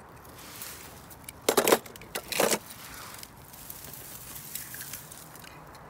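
Rustling and handling noise of a hand pushing through long grass and dry leaves, with two louder brushes about a second and a half and two and a half seconds in.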